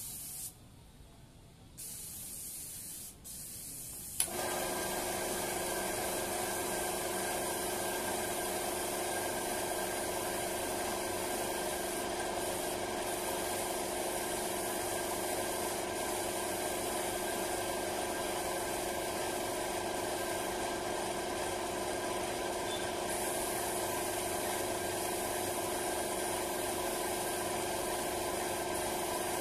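Compressed-air paint spray gun hissing as a coat of paint goes onto wooden wardrobe panels. About four seconds in, an air compressor motor starts and runs steadily, a hum under the hiss.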